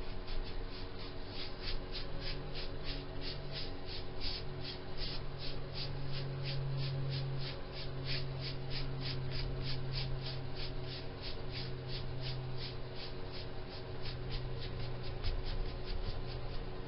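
A small paintbrush dry-brushing chalk paint onto a wooden board: quick, regular scratchy strokes, about three a second, over a steady low hum.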